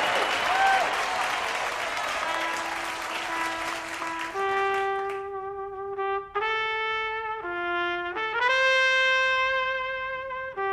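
Audience applause fading out as a single trumpet comes in with a slow melody of long held notes, stepping up and down and ending on one note held for about two seconds.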